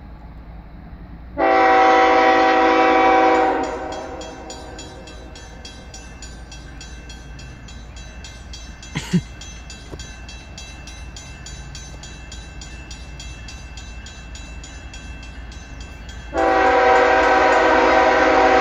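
Distant CSX diesel locomotive horn sounding two long multi-tone blasts about fourteen seconds apart, the second still sounding at the end, as the train approaches a grade crossing. Between the blasts a grade-crossing bell rings faintly and steadily. About halfway through there is one sharp, brief knock.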